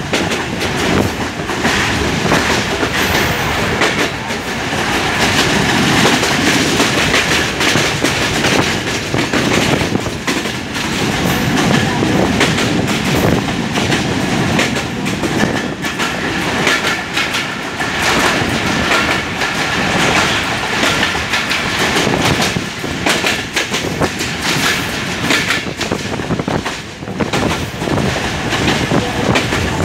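An old intercity passenger train running along the track, heard from an open coach door: a steady loud rumble of wheels on the rails crowded with rapid clickety-clack clicks.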